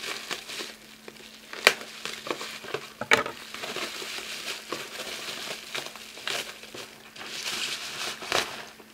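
Parcel packaging crinkling and rustling as it is pulled open by hand, with two sharp snaps, one about one and a half seconds in and another about three seconds in.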